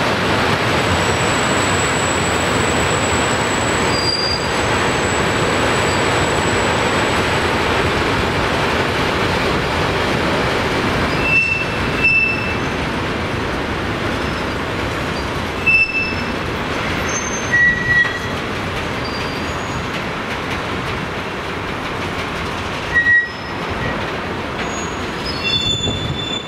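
Freight train of tank wagons rolling past with a steady noise of wheels on rail. A long, thin, high squeal runs for the first several seconds. Short high squeals come at intervals through the second half.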